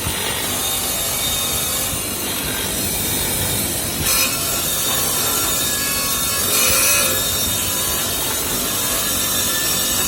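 Shmel M1 profile-tube cleaning machine running, scouring the surface of a steel profile tube fed through it: a steady, harsh rasping noise that surges louder and higher briefly about four seconds in and again around seven seconds.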